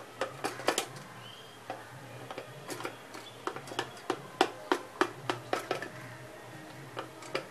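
A knife cutting a steamed dill and gram-flour cake into squares in a steel tin: irregular clicks and taps of the blade against the metal, several a second.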